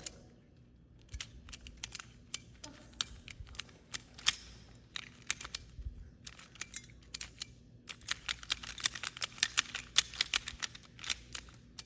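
Small plastic clicks of a Pyraminx puzzle being handled and turned: scattered clicks at first, then a quick run of rapid clicks from about two-thirds of the way in.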